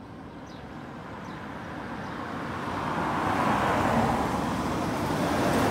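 Police van driving up the road and passing close by, its engine and tyre noise growing steadily louder over the first three seconds and staying loud as it goes past.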